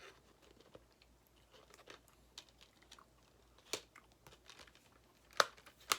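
Faint clicks and crinkles of items being handled, with two sharper clicks, one a little before four seconds in and one about a second later.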